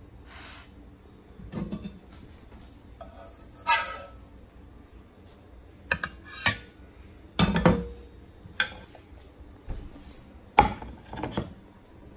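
Metal spatula scraping and clinking against a frying pan and a ceramic plate as burger patties are lifted and slid onto buns: about ten separate scrapes and clinks, a few with a short ring.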